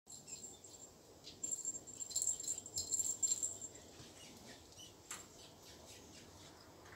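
Kittens batting a small perforated plastic cat toy ball with a bell inside: quick jingling and rattling from about one and a half seconds in until nearly four seconds, then one light tap about five seconds in.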